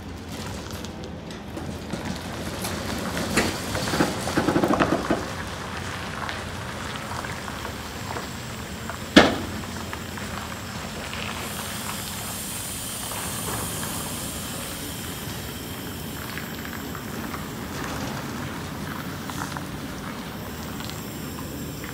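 Tractor-trailer backing through a tight turn, the trailer's tandem tires scrubbing sideways on the pavement, with a chattering stretch about four seconds in. A single sharp bang about nine seconds in is the loudest sound.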